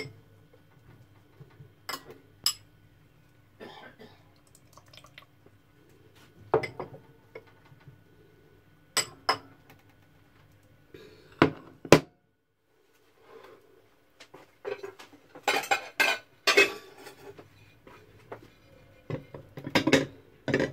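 Crockery clinking and clattering as plates and a bowl are handled: scattered sharp clinks, then busier clatter in the last third, over a faint steady hum.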